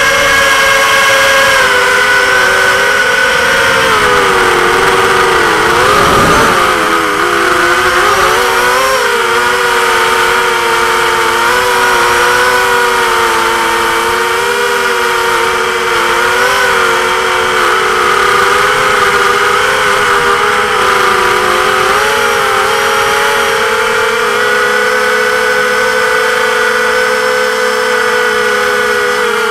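Racing quadcopter's brushless motors and propellers whining at a steady pitch, heard close up. About six seconds in the pitch wobbles and dips with a low thump, then the whine holds steady again.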